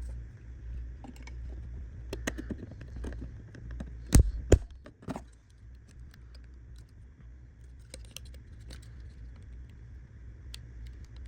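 Small plastic clicks and taps from handling a Volkswagen Passat master window switch and its plastic trim panel, with two sharp louder knocks about four seconds in, over a steady low hum.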